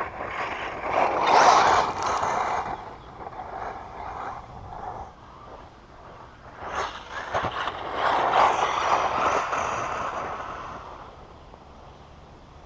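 Radio-controlled off-road car running on a loose dirt track, twice growing loud as it passes close and then fading away: once about a second in, and again from about seven to ten seconds in.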